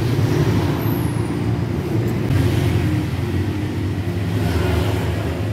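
A motor running steadily with a low hum, like an idling engine.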